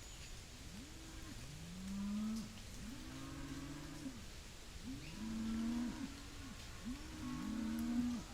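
Cattle mooing: four low, drawn-out calls about every two seconds, two animals overlapping, with faint chirps of small birds or insects behind.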